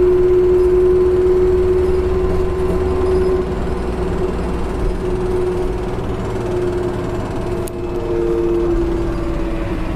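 Interior of a Hamburger Hochbahn city bus on the move: the engine runs with a low hum and a steady whine that sags a little in pitch about halfway through. A second tone comes in near the end.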